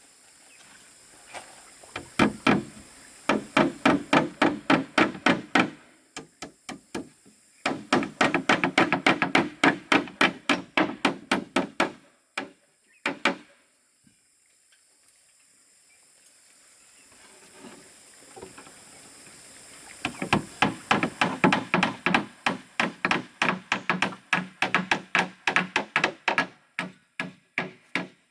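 A tool striking wood in quick, even blows, about four a second, in three long runs with pauses between.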